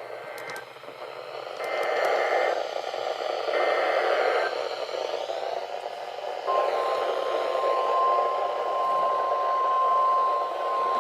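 NOAA Weather Radio alert coming through radio static: three short bursts of screechy digital data tones (the SAME header), then the steady 1050 Hz warning alarm tone starting about six and a half seconds in, which announces a new weather warning.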